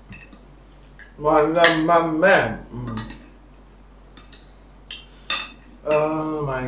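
Metal spoon and fork clinking and scraping against a ceramic plate as rice is scooped up, a handful of short sharp clinks. A man's voice speaks briefly about a second in and again near the end.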